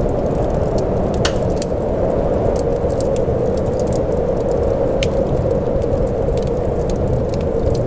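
Steady rain: a dense, even hiss with scattered sharp ticks of drops or crackles.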